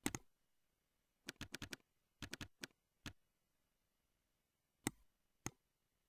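Computer mouse and keyboard clicks: a single click at the start, two quick runs of four or five clicks about a second and two seconds in, then three more single clicks spaced out toward the end.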